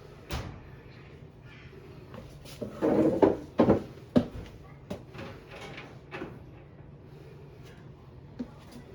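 A few sharp knocks and clunks of parts being handled, with a louder clattering scrape about three seconds in and smaller clicks after.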